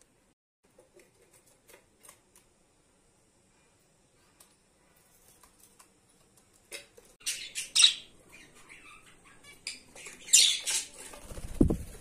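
Budgies scuffling at a nest box. Light taps and scratches come first, then two bouts of harsh squawking and wing flapping, and a low thump near the end.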